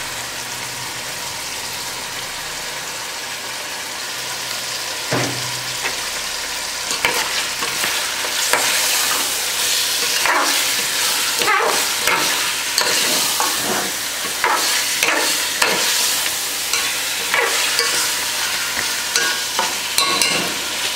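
Chicken masala frying in a metal pot with a steady sizzle. From about seven seconds in, a metal ladle stirs and scrapes against the pot in quick repeated strokes.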